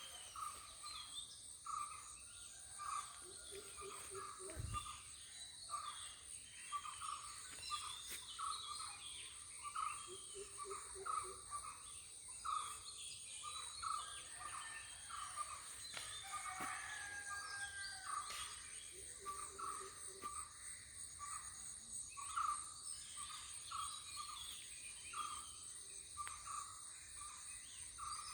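Birds calling in short notes repeated about once or twice a second, over a steady high-pitched insect drone.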